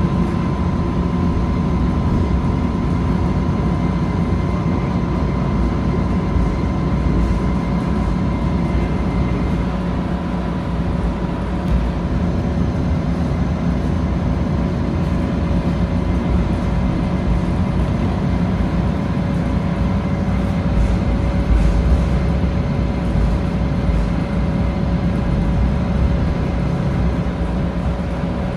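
Steady running noise inside a Bombardier Flexity light-rail car moving along the track: a low rumble with a constant whine of several steady tones over it.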